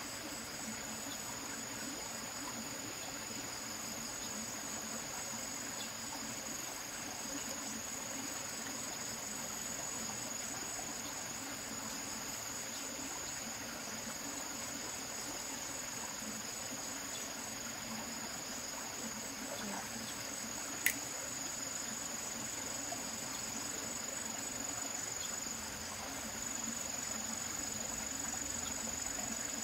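Insects, crickets or similar, trilling in a steady, high-pitched chorus that never pauses, with one sharp click about two-thirds of the way through.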